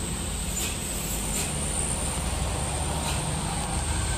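Bus diesel engine running steadily as the bus pulls through a tight bend close by, with a few brief high hisses about half a second in, around a second in, and about three seconds in.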